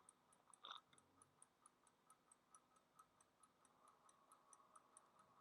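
Near silence with faint, fast, even ticking, about four to five ticks a second, and one brief click just under a second in.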